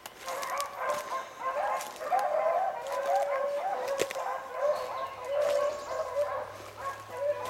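Several beagles baying together in overlapping, repeated cries: hounds in full cry running a rabbit's scent trail.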